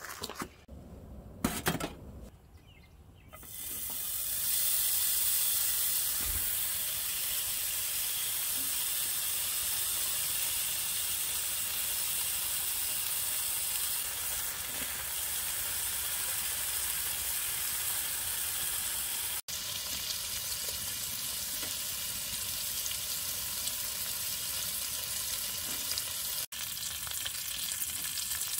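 Bacon sizzling in a frying pan on a wood stove: a steady, even hiss that starts about four seconds in, after a few short knocks.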